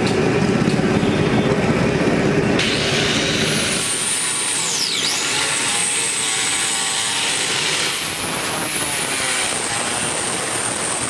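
Handheld electric circular cutter running while its blade saws through the plastic case of a lead-acid battery: a steady high motor whine over the rasp of the blade in the plastic. About five seconds in, the whine dips sharply in pitch and recovers.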